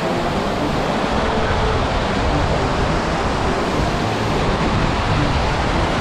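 Small mountain-stream waterfall and cascade rushing steadily: a loud, even wash of falling and tumbling water.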